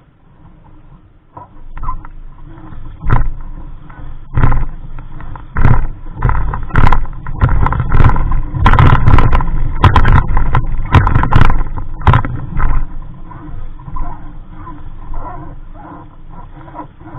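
Wind buffeting the microphone in strong, irregular gusts, with sudden loud blasts through the middle of the stretch.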